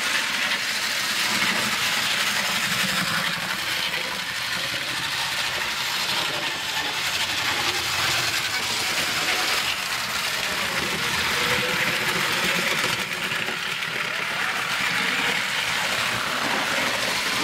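Model trains running on the layout: a steady rolling noise of wheels and motors on the track.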